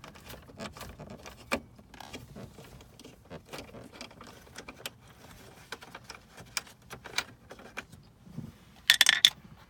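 Light clicks, ticks and small rattles of screws and plastic dashboard trim being handled and worked loose with a hand screwdriver, with a louder cluster of sharp clicks near the end.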